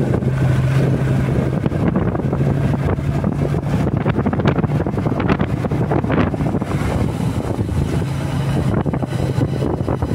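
Motorcycle engine running steadily while riding, with wind buffeting the microphone and scattered sharp knocks and rattles from the bike jolting over uneven brick paving.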